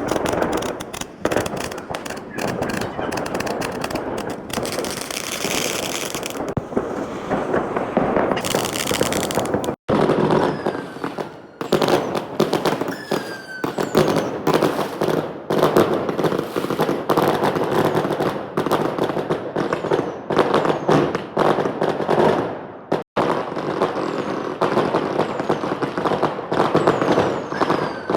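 Fireworks and firecrackers going off in a dense, unbroken crackle of rapid bangs, with short falling whistles over them. The sound drops out for an instant twice.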